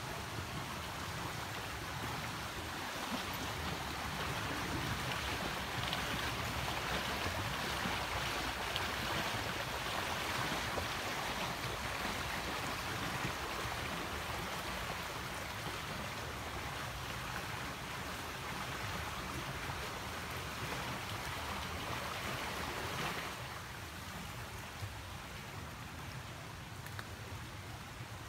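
Stream water rushing steadily below a footbridge. It is loudest through the middle and falls away about five seconds before the end.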